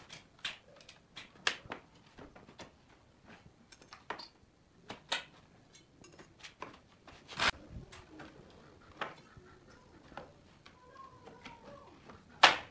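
Steel pry bar levering boards off a wooden pallet: irregular knocks and clicks of metal on wood, with the two loudest knocks about halfway through and just before the end.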